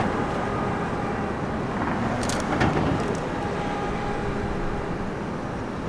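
Steady city traffic rumble with a distant subway train approaching on the elevated tracks, and a brief louder clatter a little under halfway through.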